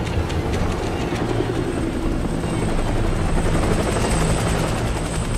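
Steady, loud, low rumbling drone with a faint fast flutter and a thin high whine, a helicopter-like sound effect.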